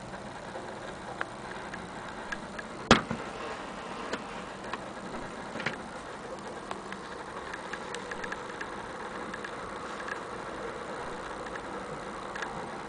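Scattered light clicks and knocks from handling an antique wooden-cased mantel clock, with one sharp click about three seconds in, over a steady background hum.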